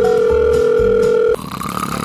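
A steady electronic beep tone, like a dial tone, held for over a second, then cut off sharply and followed by a fainter, higher tone. Background music with a steady low beat runs underneath.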